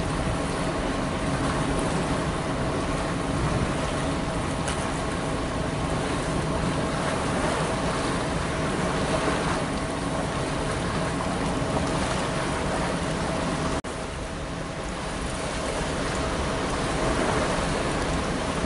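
Gusty wind buffeting the microphone, a dense steady rush heaviest in the low end, with a faint steady hum underneath.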